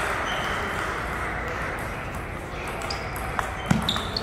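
Steady background hiss, then, from about three and a half seconds in, a table tennis ball clicking sharply off the paddles and the table in a quick rally. A few short high squeaks come through now and then.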